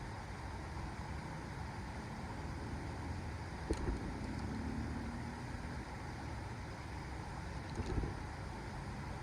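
Steady outdoor rumble with wind on the microphone, broken by two faint knocks, one near the middle and one near the end.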